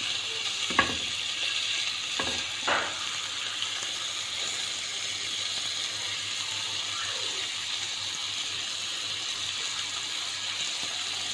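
Marinated chicken-breast skewers sizzling steadily in hot margarine in a non-stick frying pan. A few short knocks come in the first three seconds as the last skewers are laid in.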